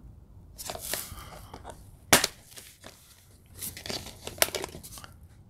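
Plastic DVD case being opened and handled, with a sharp snap about two seconds in. Scattered clicks and rustles follow as fingers work at the discs in the case.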